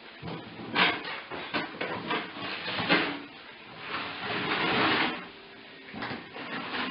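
Cardboard box being knocked about and pushed over a hard floor by playing Lakeland Terrier puppies. Several sharp bumps come in the first few seconds, then a longer scraping rustle, then a few more bumps near the end.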